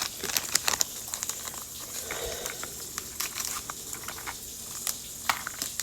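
Small plastic wrappers crinkling, with irregular light clicks and crackles as miniature toy items are unwrapped and handled.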